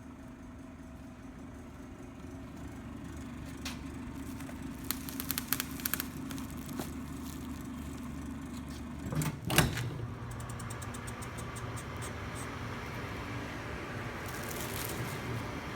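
DIBIPACK4255 shrink-wrapping machine running: a steady machine hum, a run of light clicks a few seconds in, then one loud clunk near the middle, after which the hum changes to a lower tone with fast, even ticking.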